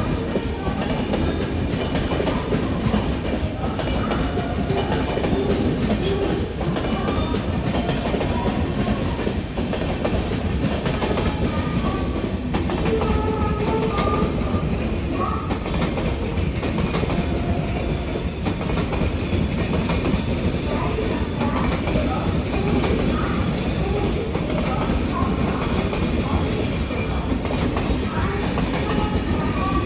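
Passenger express train rolling through a station platform on arrival, its wheels clattering over the rail joints in a steady, loud rumble. Short wheel squeals come and go as it slows towards a stop.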